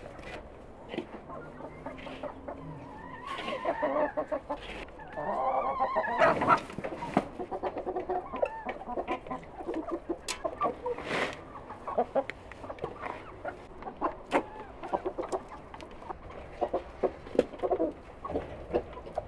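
A flock of hens and roosters clucking, in many short overlapping calls.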